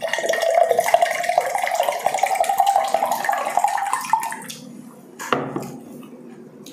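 Juice poured from a plastic pitcher into a glass mug, the pitch of the pour rising slightly as the mug fills. The pour stops about four seconds in, and a single knock follows about a second later.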